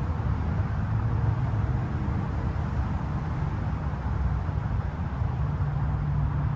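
2023 Subaru Outback's 2.5-litre flat-four boxer engine running as the car creeps over gravel: a steady low hum whose pitch rises a little about five and a half seconds in.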